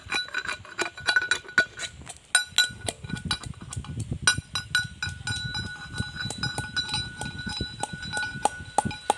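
Brass pestle pounding ginger, garlic, onion and green chillies in a brass mortar: repeated knocks, about three a second, each with a short metallic ring.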